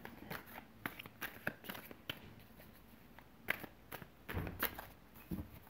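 A deck of tarot cards being shuffled by hand: soft, irregular clicks and rustles of the cards, with a few louder ones in the second half.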